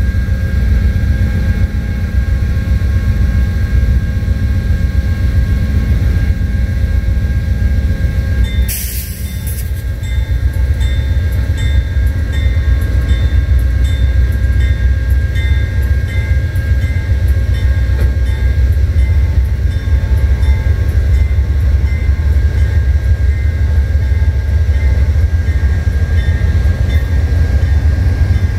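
Amtrak GE P42DC diesel locomotives (V16 engines) rumbling deeply as the train starts out of its station stop and pulls across the grade crossing. There is a short burst of air hiss about nine seconds in, after which the engine sound grows a little louder. The crossing's electronic bells ring over the top.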